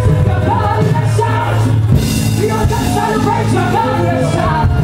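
Live band music: a saxophone playing a bending melodic line over steady bass and drums, with a cymbal crash about two seconds in.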